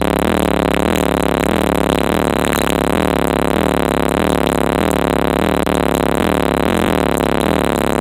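Loud bass-heavy music played through a car audio system of six 12-inch subwoofers driven by three Taramps 8K amplifiers, heard from inside the car. The recording is heavily distorted and noisy throughout.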